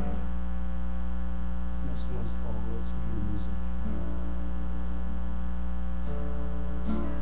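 Steady electrical mains hum with a stack of overtones, carried through an amplified sound system. A few faint notes come through it about two to three seconds in and again near the end.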